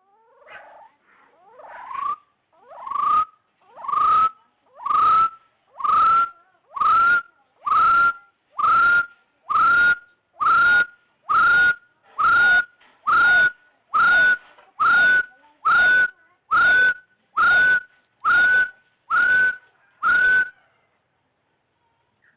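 Red junglefowl cock giving its aggressive throat call, the kind used as a trapping lure: a long series of short, rising calls, a little under one per second, starting soft and ragged and then holding steady and loud until they stop about twenty seconds in.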